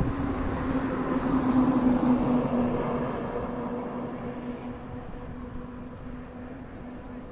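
Heavy truck driving past on the road: a steady engine drone with tyre noise, loudest about two seconds in, dropping a little in pitch and fading as it moves away.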